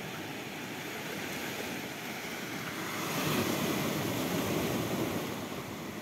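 Small sea waves washing in over a rocky, pebbly shore. The surf swells louder about halfway through as a wave breaks among the stones, then eases as it draws back.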